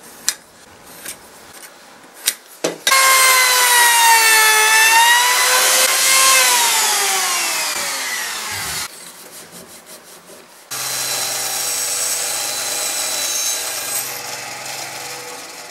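A few light scratches and clicks of a scriber and square marking wood. Then a small handheld router starts with a high whine, its pitch sagging as it cuts into the wood, and winds down after it is switched off. About eleven seconds in, a benchtop bandsaw runs steadily with a low hum while cutting a small piece of oak.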